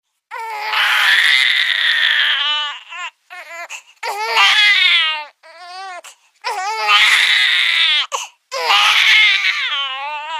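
Baby crying sound effect of the kind used in cartoons: four long, loud, high-pitched wails with short wavering sobs between them.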